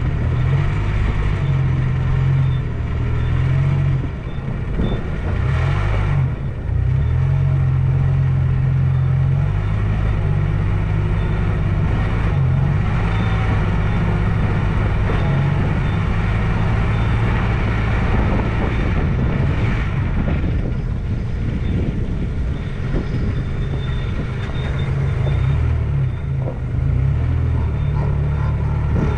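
Toyota Hilux engine running with a steady deep drone as the truck drives off-road, dipping briefly in loudness about four seconds in.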